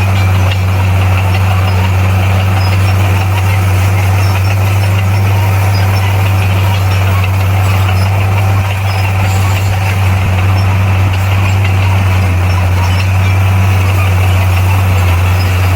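Bulldozer's diesel engine running at a steady speed, a constant low drone.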